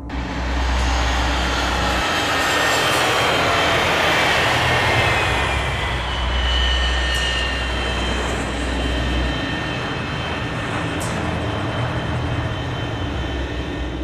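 Jet airliner engine sound effect: steady rushing jet noise with whining tones that glide down in pitch over the first few seconds.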